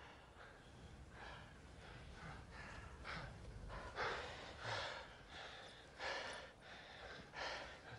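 Men breathing hard, with short sharp exhales and gasps about once a second over a faint low rumble.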